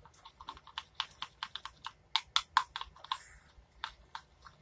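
A mixing tool stirring glue-stick slime with Tide activator in a bowl, tapping and scraping against the bowl in a quick, irregular run of small clicks.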